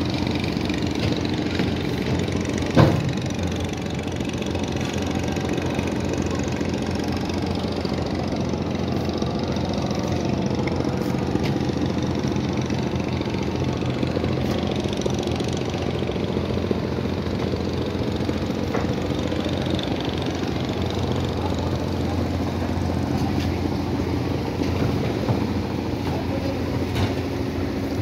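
Passenger riverboat's diesel engine running steadily, with one sharp knock about three seconds in.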